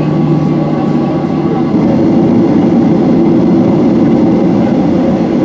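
Steady cabin rumble inside a Boeing 737-800 taxiing after landing, from its engines at taxi power. A low hum fades out about a second and a half in.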